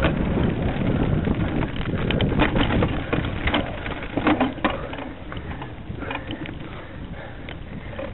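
Wind buffeting the microphone in a steady low rumble, with a run of sharp clicks and knocks between about two and five seconds in; the rumble drops lower after that.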